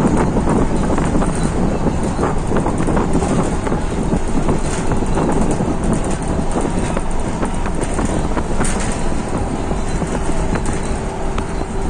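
Steady rumble of a moving road vehicle heard from inside it: engine and tyre noise on the road, with no pauses.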